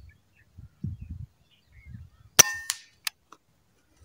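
A PCP air rifle fires a single shot, a sharp crack about two and a half seconds in, followed within the next second by two shorter clicks.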